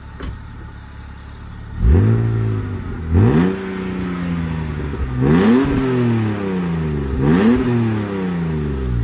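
1998 BMW 328i (E36) inline-six running through a newly fitted Remus aftermarket exhaust: idling, then revved four times about two seconds apart, each rev rising quickly and falling back slowly to idle.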